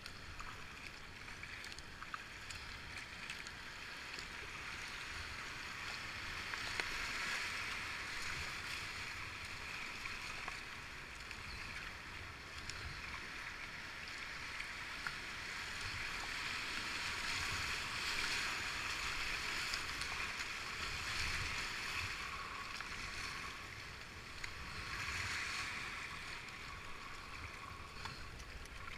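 Rushing river rapids around a kayak, with the splash of paddle strokes, picked up by a helmet-mounted GoPro. The water noise swells in surges as the boat runs through the rougher stretches of the chute, loudest in the middle and again near the end.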